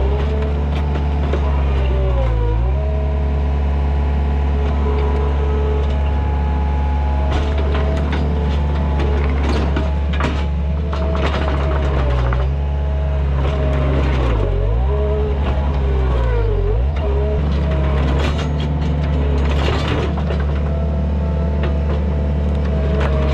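Takeuchi TL130 track loader's diesel engine running hard, its pitch sagging briefly three times as it lugs under load. Bursts of cracking wood come in the middle stretch, from the tree and branches giving way as the machine pushes into them.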